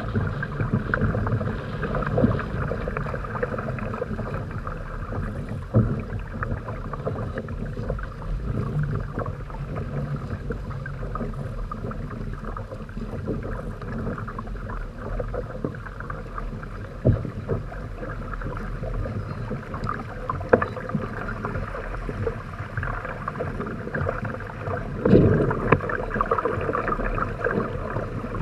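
Water splashing and rushing along the hulls of a Hobie Tandem Island trimaran under sail, with a few sharp knocks here and there and a louder surge of splashing near the end.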